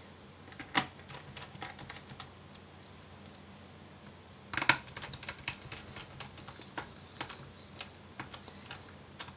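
Light clicks and taps of a small Phillips screwdriver and tiny screws against the battery and frame of an opened Lenovo ideapad laptop as the screws are put back in. The clicks are sparse, with a busier run about halfway through.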